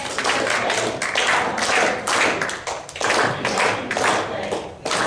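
A congregation clapping: loud, sustained applause of many hands, easing briefly a few times before picking up again.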